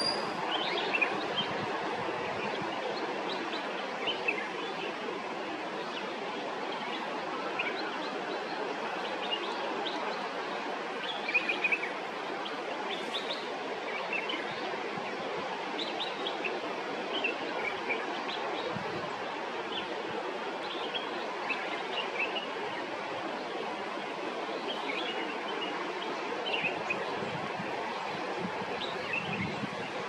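Waterfall rushing steadily, with birds chirping now and then over it.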